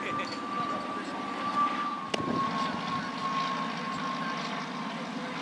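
Steady engine drone with a high whine that slides slowly down in pitch, and one sharp knock about two seconds in.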